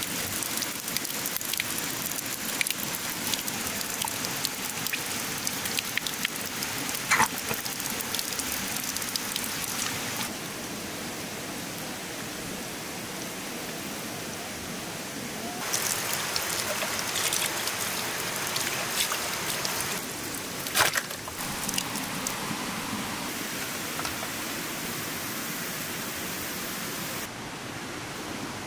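Steady rain falling, full of small drips and patters, with a couple of sharp taps about 7 and 21 seconds in. The rain's level drops about ten seconds in, comes back up about five seconds later and drops again near the end.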